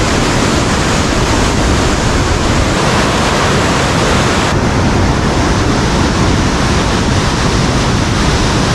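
Glacial meltwater river rapids rushing loudly below a suspension bridge: a steady, unbroken roar of white water.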